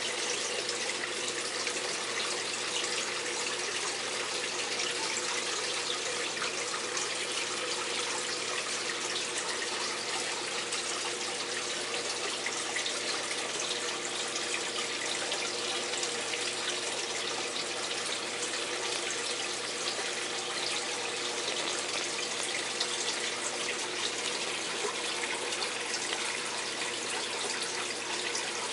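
Steady rushing water in a terrapin tank, unchanging throughout, with a faint steady hum underneath.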